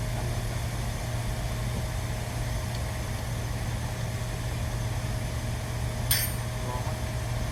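A steady low engine drone, like an idling engine, with a faint steady whine above it. One sharp click comes about six seconds in.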